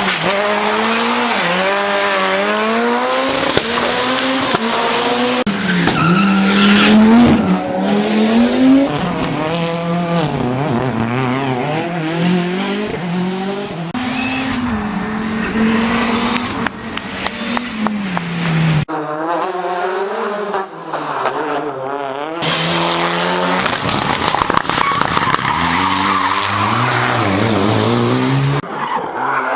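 Rally car engines revving hard, pitch climbing and dropping again and again through gear changes, over tyre and road noise. The sound changes abruptly every few seconds as one car's pass gives way to the next.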